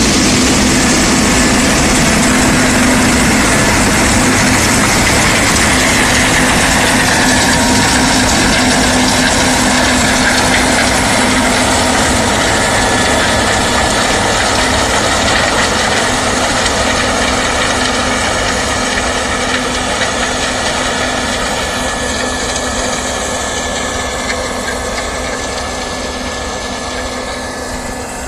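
Case IH 6130 combine harvester running while it harvests corn: a steady diesel engine and machinery drone that slowly fades through the second half as the machine moves away.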